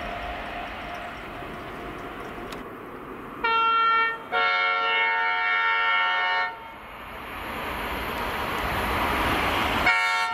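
An InterCity 225 express (Class 91 locomotive with Mark 4 coaches) sounds its horn on the approach, a short toot and then a longer two-tone blast of about two seconds. Afterwards the rumble of the oncoming train grows louder, and the horn sounds again right at the end.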